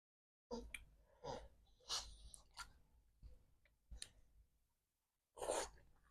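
Close-up eating sounds of momo dumplings being chewed: a string of sharp mouth clicks and smacks, with a louder one about five and a half seconds in.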